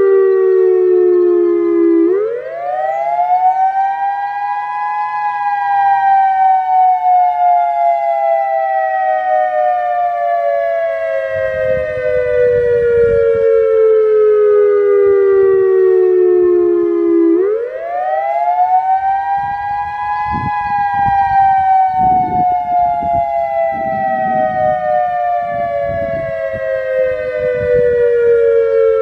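Federal Signal EOWS-1212 electronic outdoor warning siren sounding a wail. The pitch climbs quickly over about three seconds, then slides slowly down for about twelve seconds, and the cycle starts again near two seconds and near seventeen seconds in.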